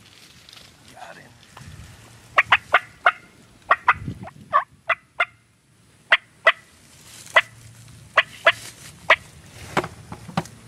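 Wild turkeys calling: about twenty short, sharp notes, some coming in quick runs of three or four.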